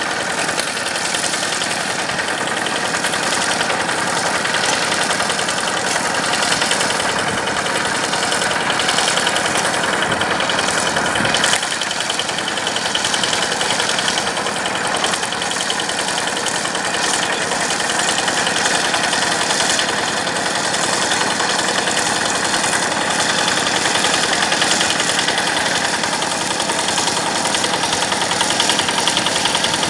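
Yanmar diesel engine of a rice-field tractor running steadily under work.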